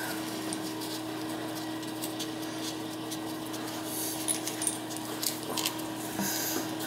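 Faint scattered clicks and clinks of new brass toilet tank bolts and washers being handled, over a steady low hum.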